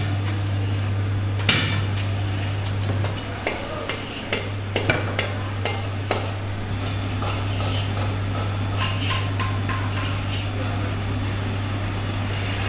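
Metal hand tools, scissors and a knife, clinking and knocking on a stone worktable as pieces of tyre rubber are handled, with scattered knocks over the first half. A steady low hum runs underneath.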